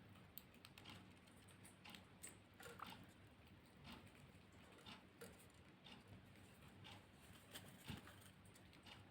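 Faint, scattered light clicks and taps of small pet finches hopping and pecking about their cage, with a few soft, short chirps.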